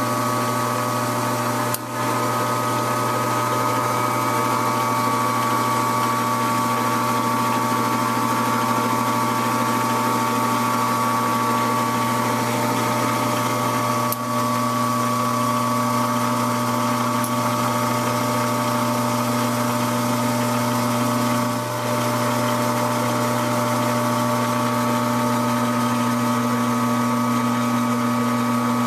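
Metal lathe running under power while threading a screw, a steady hum with a whine of several steady tones from its motor and gears.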